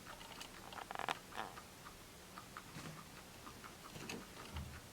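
Guinea pig grabbing at dry pea flakes: faint, scattered small clicks and crackles, with a brief louder rustle about a second in.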